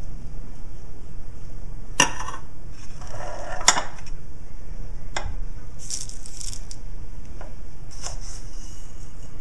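A metal spoon clinks a few times against a metal muffin tray and pot. Between the clinks, hundreds and thousands (sprinkles) rattle as they are shaken out of their container onto the toffee in paper cases, over a steady low hum.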